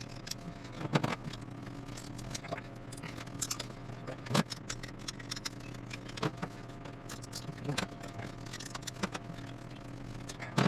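Scattered metallic clicks and clinks of a hand wrench working loose the bolts on the top end of an old truck engine, over a steady low hum.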